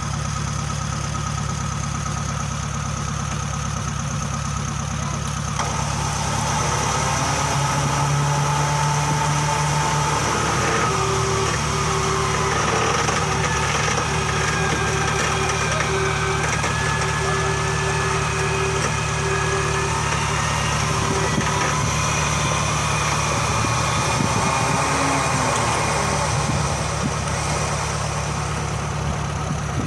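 Off-road vehicle engine running steadily at idle, a little louder from about five seconds in.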